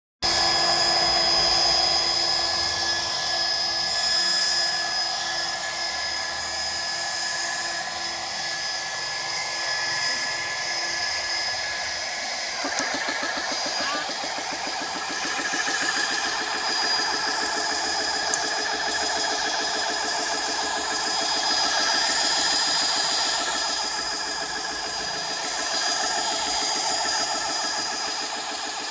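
GX-E-CS2 portable electric high-pressure air compressor running steadily as it pumps air into a .177 pre-charged pneumatic air rifle. About halfway through, its tone shifts and a fast, even pulsing comes through.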